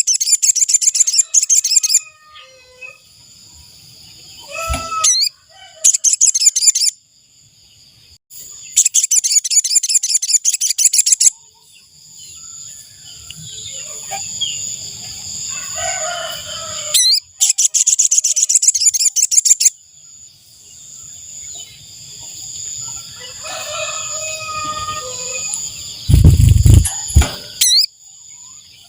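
Sogok ontong (sogon) bird, the little spiderhunter, giving four fast, high rattling trills of one to two and a half seconds each, the call used as a lure for trapping. Quieter background bird calls fill the gaps, and a loud low thump comes near the end.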